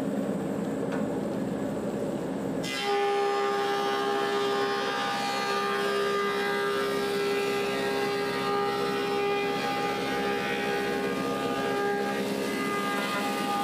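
Woodmaster 725 planer running. About three seconds in, a spalted apple slab enters the cutterhead and the sound abruptly turns louder and fuller, a steady cutting noise with a strong even tone that holds as the board feeds through.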